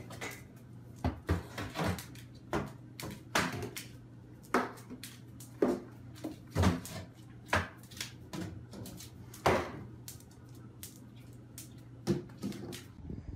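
Repeated irregular knocks and clatters as a large plastic candy-cane decoration, held crosswise in a dog's mouth, bangs against the bars of a pet gate, with a low steady hum underneath.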